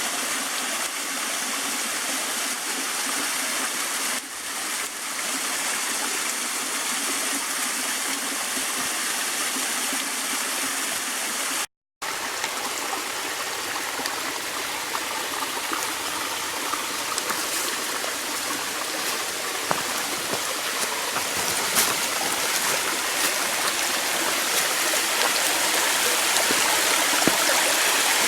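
Small cascading waterfall with a modest flow, its water splashing and rushing steadily over rock. There is a split-second silent gap about halfway, and the sound grows a little louder toward the end.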